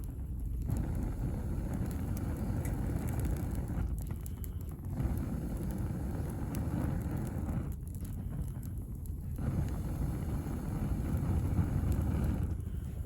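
Wood burning in a small camp wood stove: a steady low rumble with occasional faint crackles.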